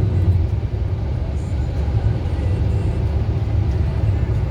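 Vehicle driving along a road, a steady low rumble of engine and tyres.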